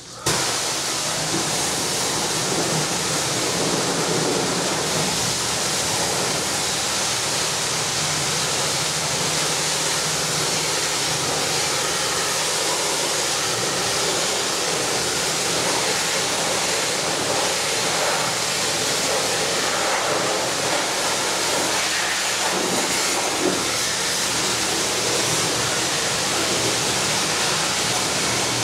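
High-pressure washer spray blasting water against a combine harvester: a loud, steady hiss of spray that cuts in suddenly at the start, with a faint steady low hum beneath it.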